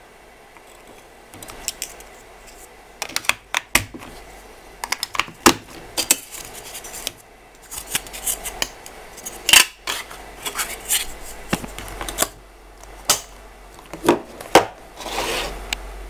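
Irregular sharp plastic clicks and knocks from a Panasonic TV remote control being handled and turned over on a wooden table, with a brief scraping rub near the end.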